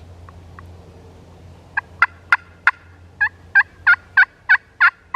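Wild turkey yelping: a run of about eleven loud, short notes starting a little under two seconds in, the first few sharper and spaced unevenly, the rest an even series about three a second.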